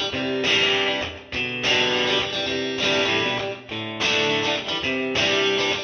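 Background music led by strummed guitar, in chord phrases about a second long.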